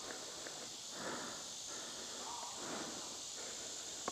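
Slow footsteps through dry leaves and brush, a soft crunch about every second and a half, over a steady high hiss. A sharp click comes right at the end.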